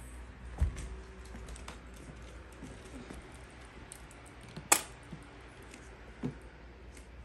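A few scattered knocks and light clicks over a low steady hum: a dull thump about half a second in, a sharp click, the loudest sound, about two-thirds of the way through, and a softer knock near the end.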